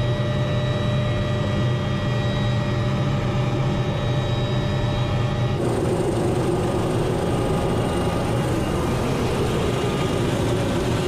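Helicopter engine and rotor running steadily. About halfway through, the sound changes abruptly to a noisier, hissier one with a faint high whine.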